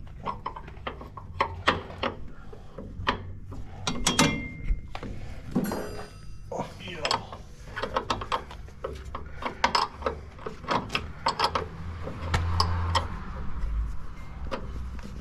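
Irregular metallic clicks, clinks and knocks of hand work on combine parts, with tools and metal pieces being handled, over a low steady hum.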